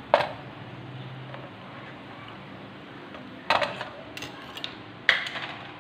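A metal spoon clinking against a frying pan as fried sweets are lifted out of the oil: one sharp clink just after the start, then short bursts of clattering knocks about three and a half seconds in and again near the end.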